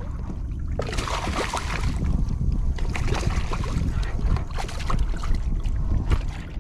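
Wind rumbling on the microphone over water splashing and lapping around a kayak. About a second in, a louder hiss of irregular splashes joins the rumble.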